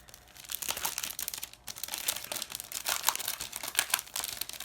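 Packaging crinkling and rustling as it is handled while an art print and its wrapping are unpacked, in a run of irregular crackles.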